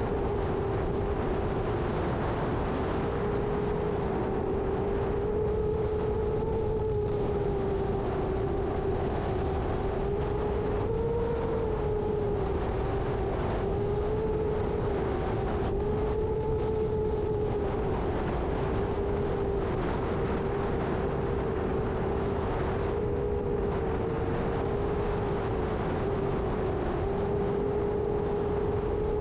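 Seven-inch long-range FPV quadcopter's motors and propellers humming, the pitch wavering slightly up and down as the throttle changes, over a low rumble of strong gusty wind.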